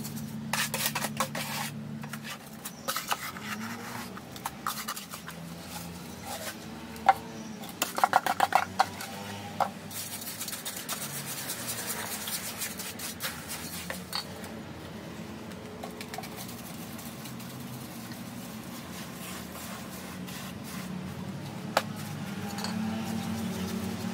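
Hand tool scraping and knocking against a container while hand-mixing concrete, with a run of sharp clinks about a third of the way in.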